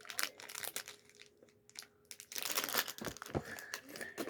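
Lego advent calendar packaging being handled: plastic and cardboard crinkling and rustling in scattered bursts, thicker in the second half.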